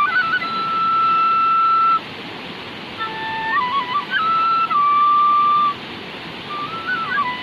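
Vietnamese bamboo flute (sáo) playing a slow melody of long held notes broken by quick ornamental turns, with short pauses between phrases, over a steady hiss.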